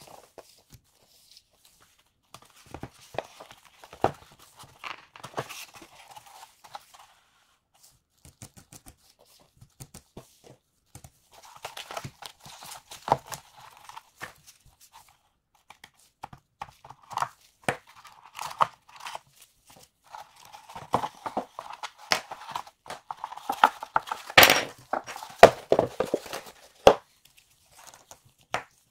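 Packaging being opened and handled, sped up to double speed: stretches of plastic and cardboard rustling and crinkling with many sharp clicks and knocks, the loudest click near the end, and short quiet gaps between.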